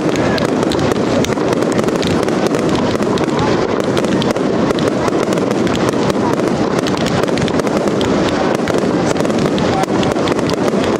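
Many F2 consumer firework batteries (cakes) firing together: a dense, unbroken barrage of launch shots, bangs and crackling bursts.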